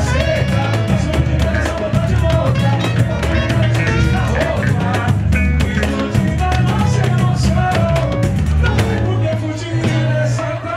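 Live samba band playing: a male lead singer sings over hand drums, pandeiro and cavaquinho, with a steady drum beat.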